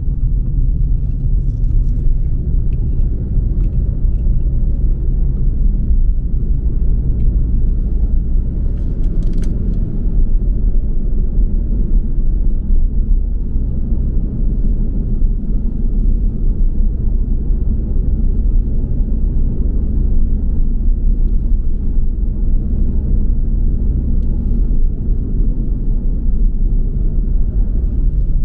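Car driving on a road: a steady low rumble of engine and tyres, with a few faint clicks about nine seconds in.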